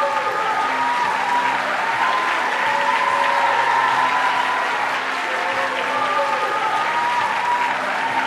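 An audience applauding steadily, with music faintly underneath.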